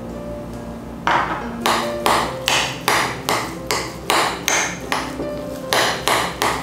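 Metal spoon stirring thick soybean paste in a glass bowl, clinking sharply against the glass about two to three times a second, starting about a second in. Soft background music underneath.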